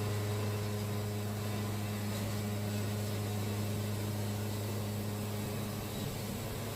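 Band sawmill's engine running steadily under load as the band blade cuts through a pine log. The blade is dull and smoking.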